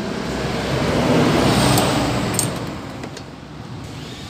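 A motor vehicle passes by, swelling to its loudest about a second or two in and then fading away. A few light clicks are heard about halfway through.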